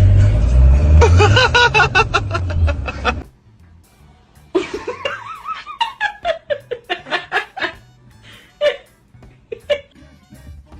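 People laughing hard. A run of quick laughing bursts over a low rumble cuts off suddenly, and then a high laugh in short bursts falls steadily in pitch, followed by a few scattered chuckles.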